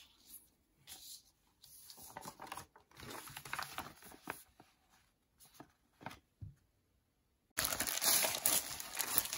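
Packaging rustling and crinkling as an embroidery kit is handled, in short scattered bursts, turning into louder, continuous crinkling near the end.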